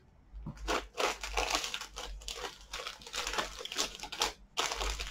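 Parcel wrapping being handled and crumpled by hand: a dense, irregular crinkling rustle that starts about half a second in and pauses briefly near the end.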